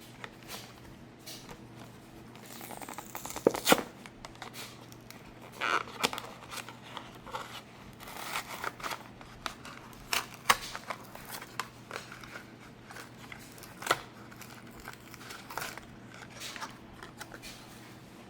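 Hot Wheels blister-card packaging being torn open by hand: cardboard ripping and the plastic blister crinkling, in irregular rips and clicks, loudest about three and a half seconds in.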